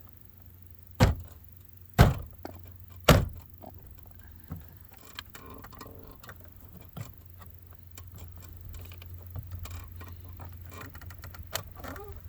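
Three hard knocks about a second apart as a clip is pressed and knocked into place on a truck door, followed by lighter clicks and rattles of parts being handled.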